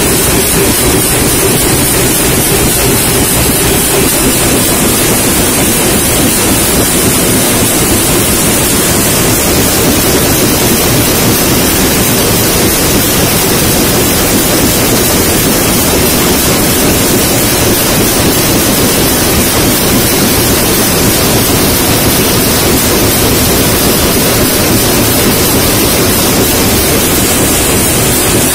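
Loud, steady machinery noise of a metal-can production line: an even, dense noise with no distinct beats or tones.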